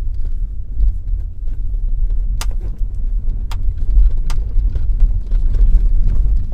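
Knocking in the roof panel of a 2020 Hyundai Tucson over a steady low road rumble in the moving car. There are faint ticks throughout and three sharp, loud knocks in the middle, about a second apart: a loose roof panel or trim knocking over the road.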